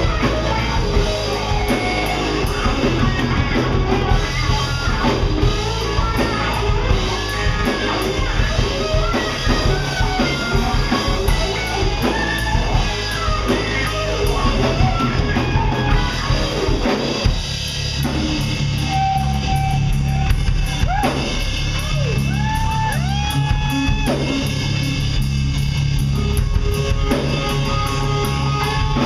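Live rock band playing electric guitars and a drum kit, with cymbals through it all. About two thirds of the way in the music changes, and a lead guitar plays long held notes that bend up in pitch.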